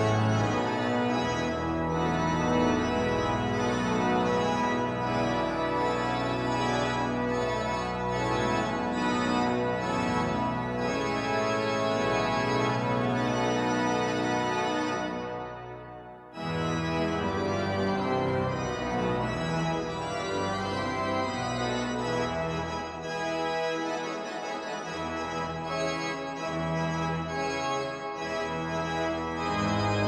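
Church organ playing full chords over a pedal bass line. About halfway through, the sound dies away and a new passage starts abruptly.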